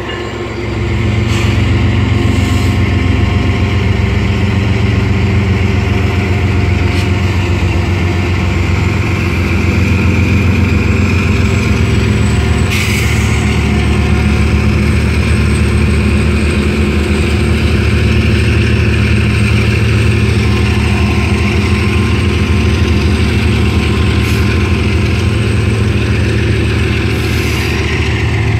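Two Union Pacific diesel-electric freight locomotives passing close at steady speed, their engines running with a loud, deep drone and a fainter higher whine above it. The sound swells about a second in as the locomotives draw level.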